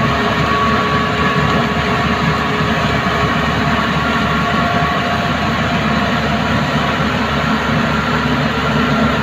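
Rice combine harvester running steadily: a loud, unbroken machinery drone with a faint steady whine over it.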